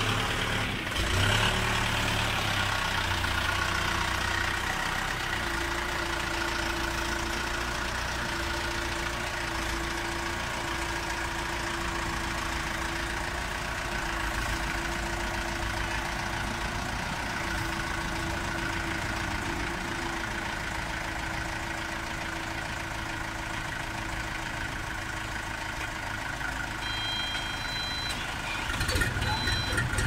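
Forklift engine running steadily while the forklift loads a heavy machine. Near the end a high, repeating beep starts.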